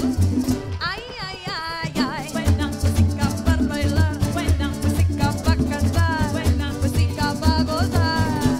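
Live parang band: several voices sing over strummed acoustic guitar and cuatro, with a bass line and maracas shaking. The bass drops out about a second in and comes back about a second and a half later.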